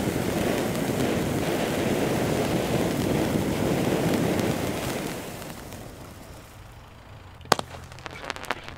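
Two firework fountains hissing steadily as they spray sparks, then dying away about five to six seconds in. A little later comes one sharp firework bang, followed by a few smaller pops.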